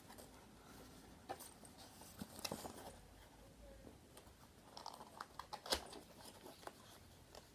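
Faint scattered taps, clicks and light rustling of a handboard and its packaging being handled, with one sharper click a little past halfway.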